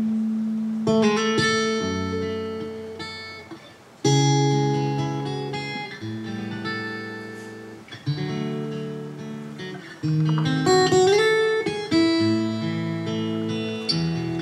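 Steel-string acoustic guitar played fingerstyle: chords and melody notes struck every second or two and left to ring, with a note sliding up about eleven seconds in.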